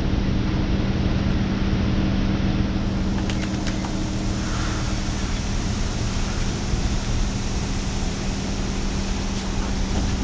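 Water spraying steadily from a self-service dog wash hose onto a Labrador's coat during rinsing, with a steady low hum beneath the spray.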